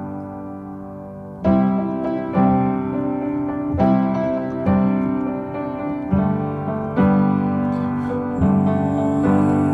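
Piano playing an instrumental passage: a held chord at first, then chords struck roughly once a second from about a second and a half in, each ringing and fading.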